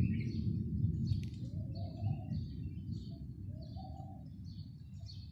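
Low rumble of thunder dying away, while small birds keep chirping about twice a second and a dove coos now and then.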